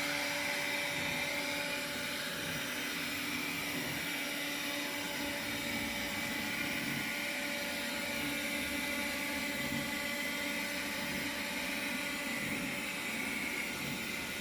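Robot vacuum running steadily on a shag rug, a constant motor whine over a suction hiss.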